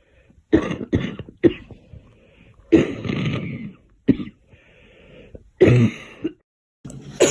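A girl coughing repeatedly: a run of short, sharp coughs, one longer rasping throat-clearing cough in the middle, and a faint drawn-in breath before a final pair of coughs.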